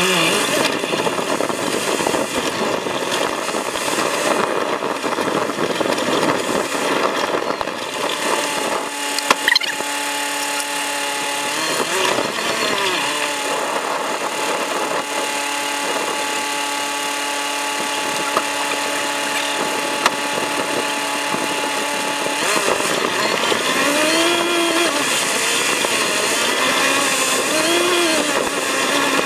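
Sped-up sound of an off-road vehicle driving a rough track: engine and track noise turned into a high buzz. The engine pitch holds steady through the middle, then rises and falls several times near the end.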